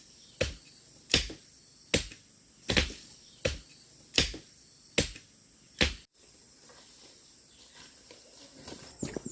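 Steady chopping: eight sharp blows about three-quarters of a second apart, stopping about six seconds in.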